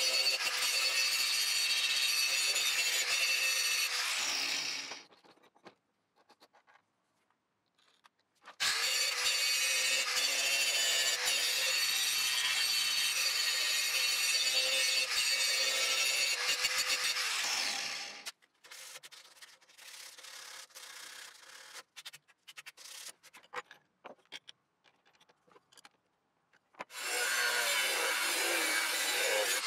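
Angle grinder grinding the rusty steel of an old woodworking tool, a steady hiss of abrasive on metal over the motor's whine. It stops about five seconds in and starts again about nine seconds in. It stops again about eighteen seconds in, leaving only faint scattered clicks, and starts once more a few seconds before the end.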